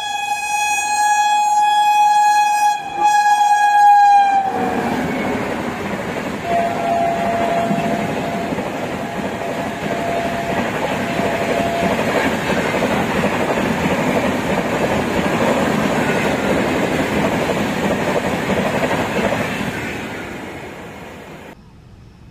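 Indian Railways WAP-7 electric locomotive's horn held long and dropping in pitch as it passes about four seconds in, followed by the express's coaches running through at speed with a steady wheel-on-rail noise, fading near the end.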